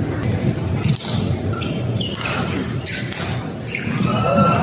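Badminton rally: sharp racket strikes on the shuttlecock, roughly one a second, over the murmur of the crowd in a large hall.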